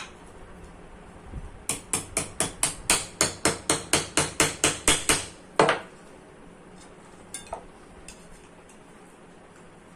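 Hammer tapping on metal: a quick run of about fifteen evenly spaced strikes, roughly four a second, then one heavier blow, followed by a few faint clicks.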